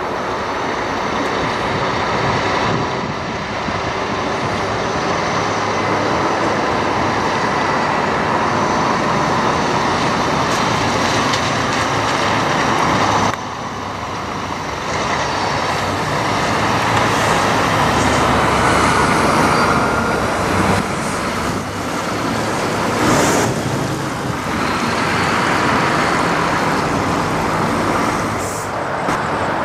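Kenworth T680 semi truck with a box trailer pulling in at low speed, its diesel engine running steadily under tyre and road noise. There is a sudden break in the sound about halfway through.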